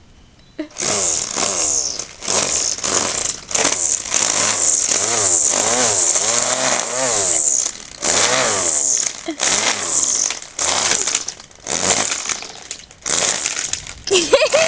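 Gas string trimmer engine revved in short bursts, about a dozen in a row. Each burst rises and falls in pitch, with short drops toward idle between them: the throttle trigger is pulled and let go again and again instead of being held down.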